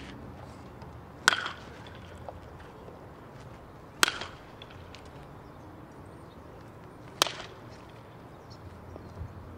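Baseball bat hitting pitched balls in batting practice: three sharp cracks, each with a brief ring, about three seconds apart.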